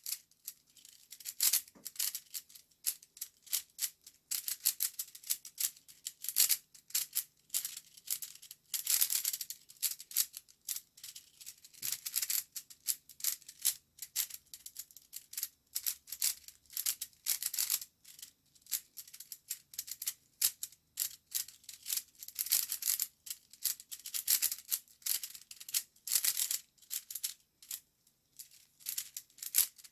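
Plastic twisty puzzle cube being solved quickly by hand: a rapid, continuous run of clicking, rattling face turns with a few short pauses.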